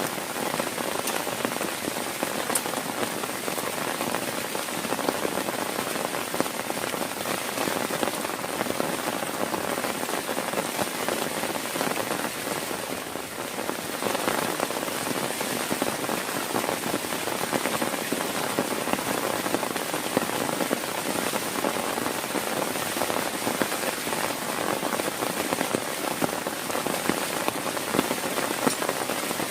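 Heavy rain falling steadily, with a dense stream of close individual drop hits on a surface.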